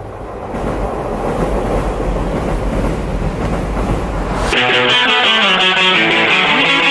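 A passing train's rushing rumble, growing slightly louder. About four and a half seconds in it gives way abruptly to guitar-led rock music.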